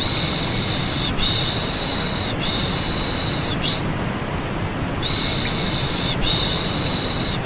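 Steady white noise under a repeated 'shh' shushing voice for soothing a baby: three long shushes of about a second each, a short pause, then two more.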